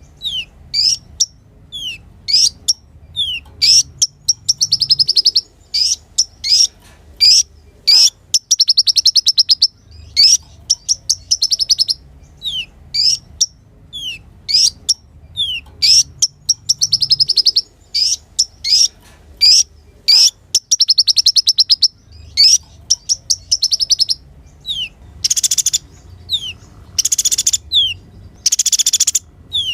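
Kolibri ninja (konin) sunbird singing: quick high descending whistled notes alternating with rapid trilled phrases. Near the end the song turns to several louder, harsh scratchy bursts.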